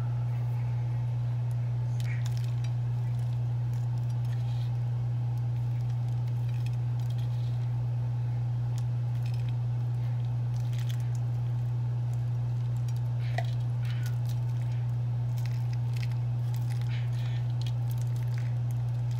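A steady low hum throughout, with scattered faint ticks and light clinks as crushed pistachios are sprinkled over filo pastries.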